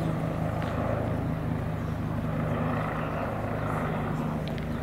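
A steady low engine-like hum, with a rushing noise that swells and fades about halfway through.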